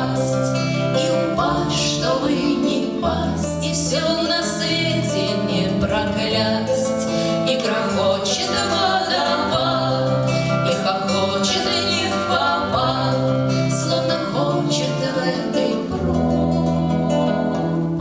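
Women singing a Russian bard song (авторская песня) to acoustic guitar accompaniment.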